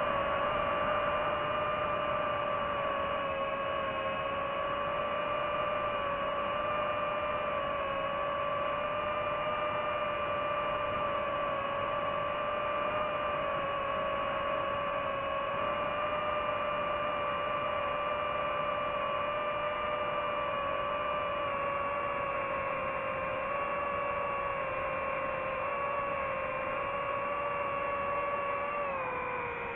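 DJI FPV drone's motors and propellers whining steadily in flight, the pitch wavering slightly with throttle and dropping near the end.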